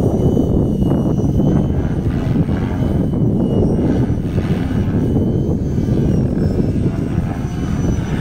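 A 500-size electric RC helicopter flying overhead: a steady whirr of its rotors with a faint high whine from its brushless motor.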